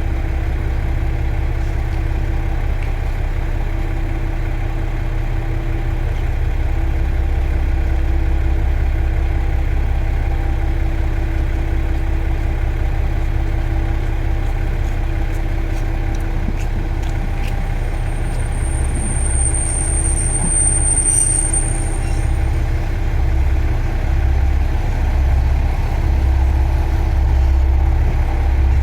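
JR Shikoku Class 1000 diesel railcar running as it approaches the station: a steady low engine drone that grows slightly louder toward the end, with a brief high, thin squeal a little past the middle.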